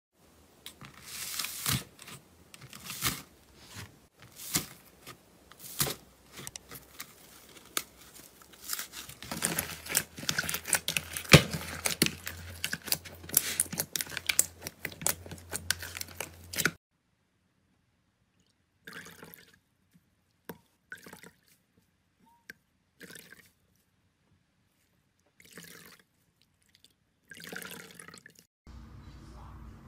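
Slime being pressed, kneaded and squeezed by hand: close-up crackling and popping, densest around the middle, that cuts off suddenly, followed by scattered short wet squelches.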